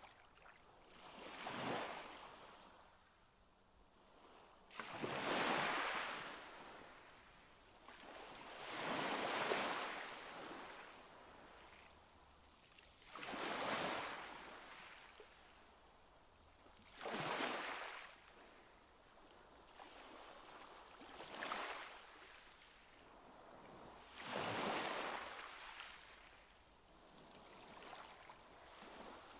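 Water washing in a concrete pool in repeated swells, each rising and fading over a second or two, about every four seconds.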